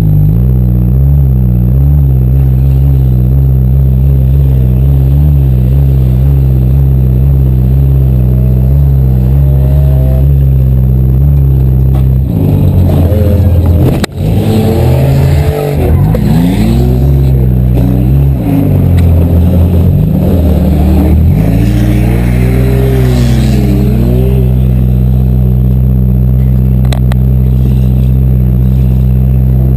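Demolition derby car engine running steadily, then revving up and down for several seconds mid-way before settling back to a steady drone, with one sharp crack about fourteen seconds in.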